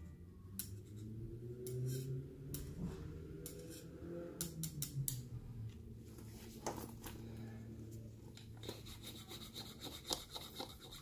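Tools being handled in a nylon tool pouch: light clicks, rubs and rustles as screwdrivers, bits and a pencil are moved about.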